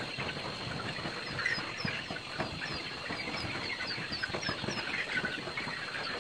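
A brood of chicks peeping continuously: many short, high, falling chirps overlapping, with light rustling and scratching around them.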